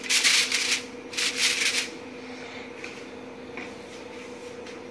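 Aluminium foil crinkling as hands press it down over a dish, two bursts of rustling in the first two seconds. After that only a faint steady hum remains.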